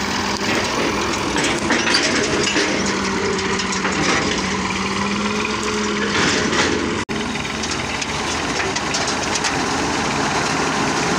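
Massey Ferguson 240 tractor's three-cylinder diesel engine running steadily while it moves a threshing machine, with a brief break about seven seconds in.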